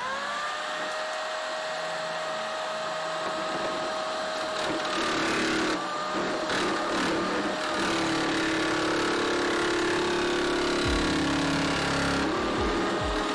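Parkside electric metal nibbler starting up with a quickly rising whine, then running steadily as it punches its way through sheet metal. Its motor whine sits under a loud, noisy chatter from the cutting, and the pitch dips briefly a few times as the cut loads it.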